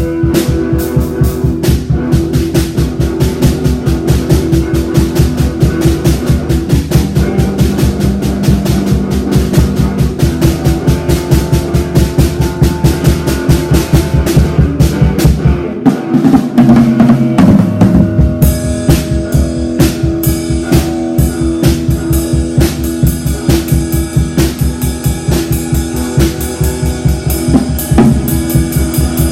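Music driven by a drum kit: bass drum and snare keep a steady beat over sustained bass and guitar notes. About halfway the kick drops out for a moment, then the beat comes back with more cymbal.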